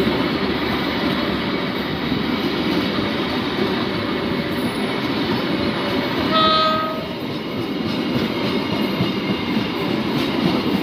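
Passenger train coaches running past on the track, a steady rumble of wheels on the rails. About six and a half seconds in, a short horn blast sounds over it.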